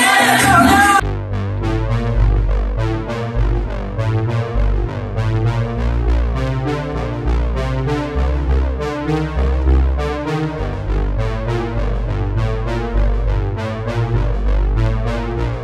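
Music only: a sung track cuts off abruptly about a second in. Synthesizer keyboard music with a heavy bass and a steady beat takes over.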